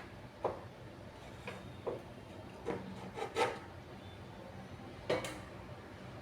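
A series of short, irregularly spaced scraping strokes, about seven in all, the loudest two near the middle and about five seconds in.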